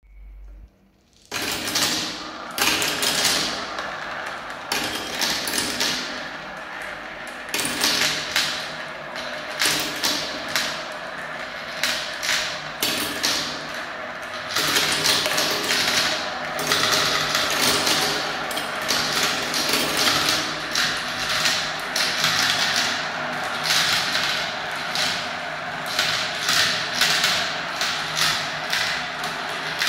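A handful of small plastic balls pouring into a plastic marble run, starting suddenly about a second in, then rattling and clicking continuously as they roll around its clear plastic swirl bowls and drop through its tubes.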